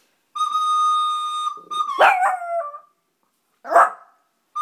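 A steady held note from a flute-like wind instrument, then a Volpino Italiano dog howls along about two seconds in, its pitch falling, and gives a short yelp near the end.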